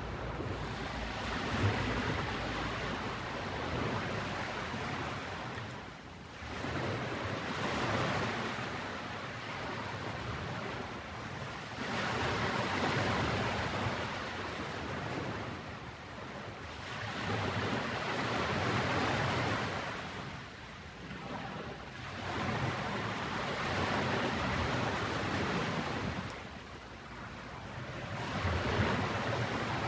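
Ocean waves breaking and washing up a beach, the surf swelling and ebbing about every five seconds.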